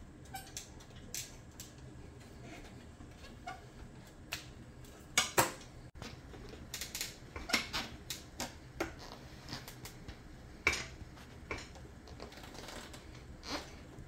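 Irregular metallic clicks, clinks and knocks of tire irons working against a dirt bike wheel rim and rim protectors as the tire bead is pried off, with louder knocks about five seconds in and again around seven to eight seconds.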